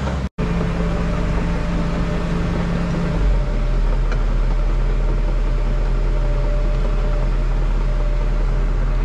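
Cat 316 excavator's diesel engine running steadily, heard from inside its cab as a constant low hum. About three seconds in, the hum gets deeper and stronger.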